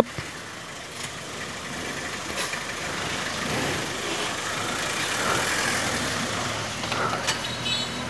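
Vehicle engine running at idle, a steady rumble with a few faint clicks, and a brief high-pitched tone near the end.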